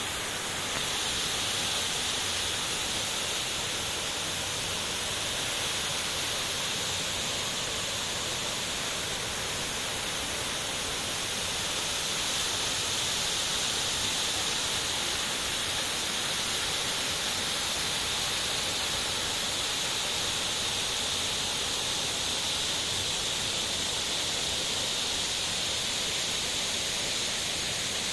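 Kurşunlu Waterfall's water pouring down in a steady, unbroken rush, with a strong hiss.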